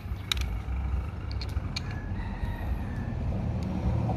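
A rooster crowing faintly once, one long call, with a few small clicks in the first seconds as a plastic cap is pressed onto the mirror's mounting bolt on the handlebar.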